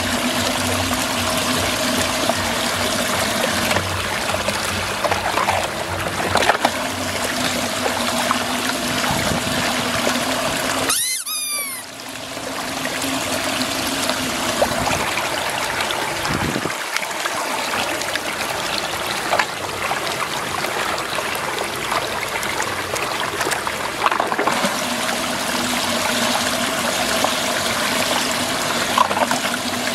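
Muddy water swirling in a whirlpool and draining down its central hole: a steady trickling rush of water with a steady low hum beneath it. The sound drops out briefly about a third of the way in.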